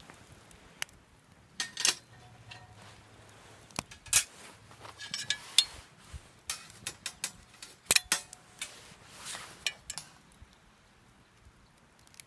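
Irregular clinks and clanks of metal gear being handled, each knock sharp with a brief ringing tone, thinning out over the last couple of seconds.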